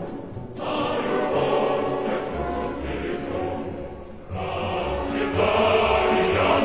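Background choral music: a choir singing sustained tones, dipping briefly near the start and again about four seconds in.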